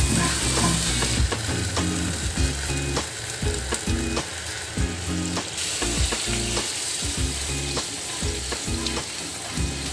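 Thick masala gravy with curd sizzling in a frying pan while a metal spatula stirs and scrapes through it, in many short strokes. Water is poured in about four seconds in, and the sizzle eases a little after that.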